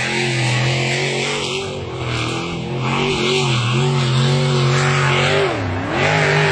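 Racing boat's engine running loud at steady revs, its pitch wavering a little, then dipping briefly and coming back up near the end.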